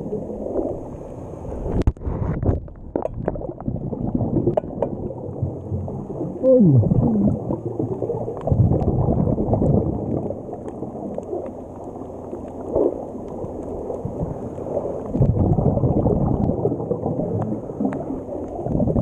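Muffled underwater bubbling and gurgling picked up by a camera in a waterproof housing, swelling and fading in irregular surges. A few sharp clicks come about two to three seconds in, and a short falling tone a little past six seconds.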